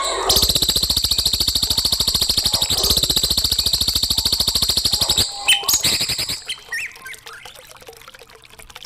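Recorded songbird song used as a tutor song for young birds: a rapid, buzzy trill of evenly spaced notes lasting about five seconds, then a few short chirps.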